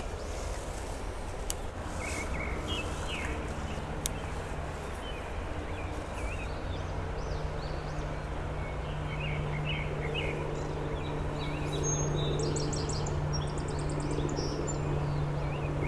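Small birds chirping now and then over steady outdoor background noise, with a low steady hum that comes in about two seconds in.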